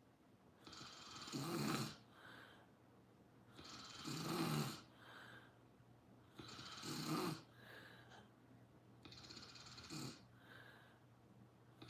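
Sleeping snorer snoring in a slow, regular rhythm: a snore about every three seconds, each lasting about a second, with a softer breath between. The last snore, near the end, is fainter.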